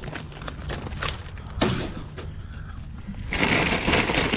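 Rummaging through dumpster contents: a few light knocks of cardboard snack boxes being handled, then from about three seconds in a loud rustle of plastic bags and bubble wrap being pushed aside.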